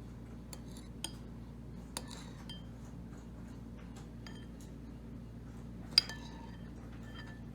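Cutlery and dishes clinking: scattered light clinks that ring briefly, the loudest one about six seconds in.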